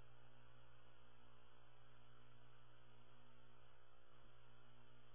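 Faint, steady electrical mains hum: a low, unchanging tone with a buzzy edge.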